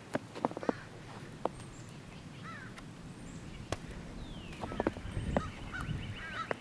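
Birds calling outdoors with short arched chirps, a few at a time, several times over, mixed with scattered sharp clicks or crunching knocks.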